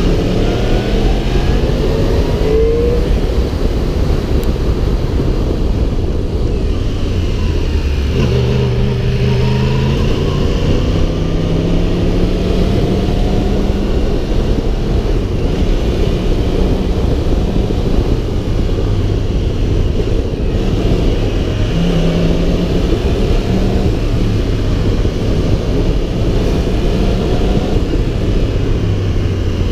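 2015 Yamaha R1's crossplane inline-four engine running under way, rising in pitch as it accelerates in the first few seconds. It drops to a lower, steady note about eight seconds in and picks up briefly again later.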